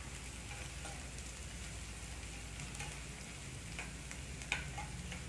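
Chopped onion and green chilli sizzling in hot oil in a pan while a spatula stirs them, with light scraping clicks of the spatula on the pan. One sharper click comes about four and a half seconds in.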